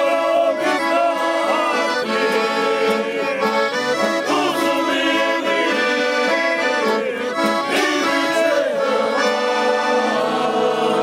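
Accordion playing a lively traditional folk tune, with an acoustic guitar strumming along and a group of men singing together.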